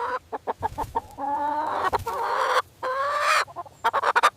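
Chicken clucking: runs of quick short clucks on either side of a longer drawn-out call in the middle.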